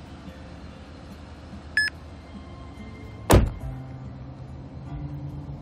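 A single short electronic beep, then about a second and a half later a loud thud of a car door shutting, over a steady low hum.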